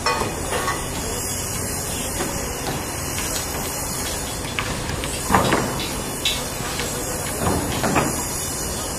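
Sumitomo SH480 hydraulic excavator working, its diesel engine running steadily under a noisy wash. Several heavy knocks come a little past halfway and twice near the end.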